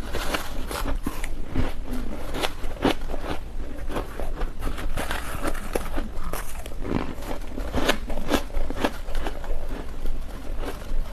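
Close-miked ice being bitten and chewed: a dense, irregular run of crisp crunches and cracks with no pause.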